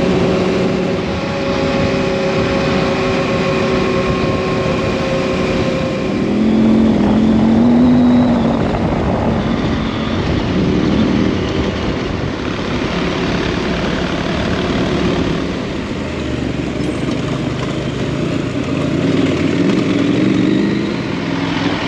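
KTM adventure motorcycle engine running under way at a steady pitch, then rising and falling with throttle changes, over a constant rush of wind and riding noise.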